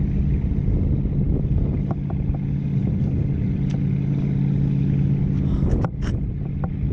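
Steady low engine drone of the motorboat towing the parasail, running at constant speed. Near the end a short rustle of a hand brushing over the camera.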